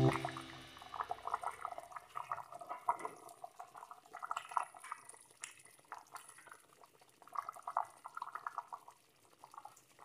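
Thick spaghetti meat sauce simmering in a pot, its bubbles bursting in faint, irregular plops that come in clusters.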